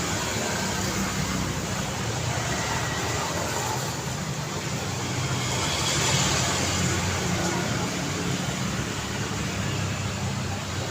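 Busy city street traffic: vehicle engines and tyre noise running steadily, with one vehicle passing close and louder about six seconds in.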